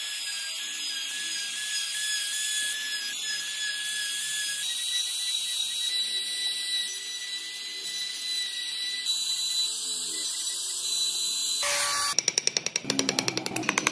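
Handheld trim router running at high speed and cutting grooves into a hardwood blank: a steady high whine whose pitch steps up slightly a few seconds in. Near the end it stops abruptly and a fast run of sharp, evenly spaced taps begins.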